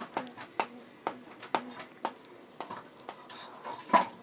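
Irregular light clicks and taps, about two a second, from a drawing compass being handled and its setting adjusted against paper, with one louder click near the end.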